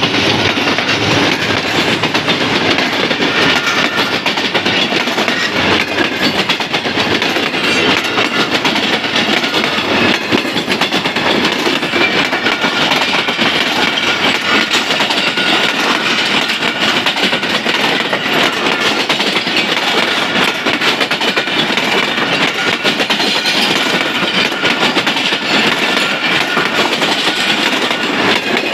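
Passenger coaches of a diesel-hauled Pakistan Railways express passing at speed close by: a steady, loud rush of wheels on rail, with rapid clicking as the wheels run over the rail joints.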